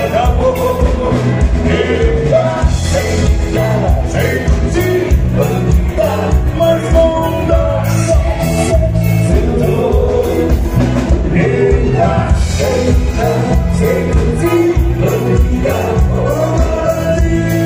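Live dance band playing with a singer, over a steady beat.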